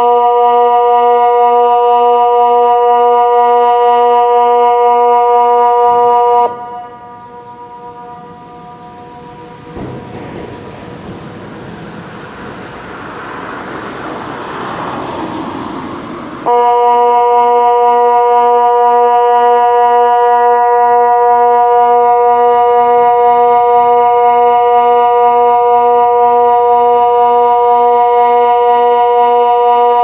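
Kockum Sonics Delta 4 electronic siren sounding the Swiss water alarm, a loud steady deep tone with several overtones. It cuts off about six seconds in, and a rushing noise swells through a ten-second pause. Then the same steady tone starts again.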